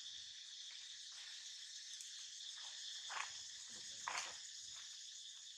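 Steady high-pitched insect chorus, with two short louder sounds about three and four seconds in.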